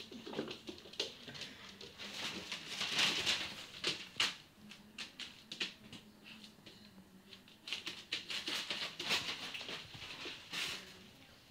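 A Labrador puppy's claws pattering and scrabbling on a laminate floor, with light knocks and scuffles as it plays.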